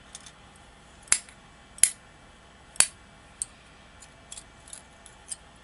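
Small metal clicks of tweezers handling tiny lock pins: three sharp clicks about a second apart, then a scatter of lighter ticks.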